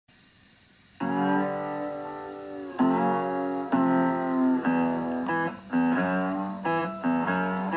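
Guitar music: plucked guitar chords start about a second in, each ringing out before the next is struck, changing roughly once a second.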